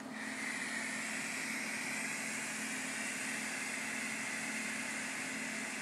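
One long, steady inhale drawn through a PAX dry-herb vaporizer, heard as an even airy hiss.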